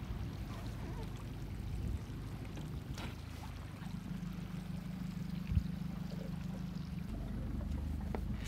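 Low, steady rumble of a small boat on open water, with a faint low hum partway through and a couple of light knocks.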